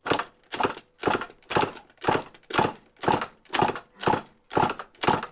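Two-stroke dirt bike engine being kicked over rapidly with the kickstarter, throttle wide open and a compression gauge in the spark plug hole so it cannot fire: an even, rhythmic pulse about twice a second, eleven in all. It is cranking for a compression test on a partially seized top end that reads only 85 psi.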